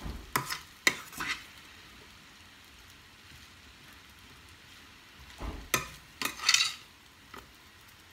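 Metal spoon scraping and clinking against a stainless steel frying pan as noodles are stirred and tossed: a few quick strokes at the start, then a second cluster of scrapes about five and a half seconds in.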